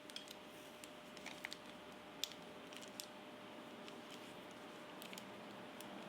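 Faint, irregular small clicks and light handling noise from a Marcel curling iron being worked through the hair, the clamp opening and closing, over a faint steady hum; the sharpest click comes about two seconds in.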